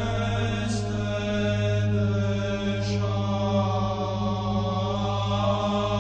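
Orthodox church chant sung in Romanian by male voices: a melody moving over a steady held low drone (the ison).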